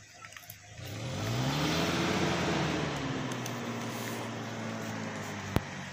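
A motor vehicle driving past, its engine note rising and then falling away, loudest about two seconds in. A single sharp click near the end.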